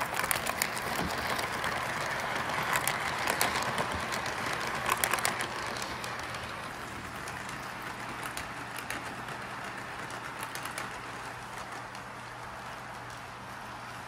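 Lionel O-gauge Toy Story train running on its track: a steady whir and rumble of wheels and motor with scattered clicks over the rail joints. It is loudest in the first five or six seconds, then fades as the train moves away.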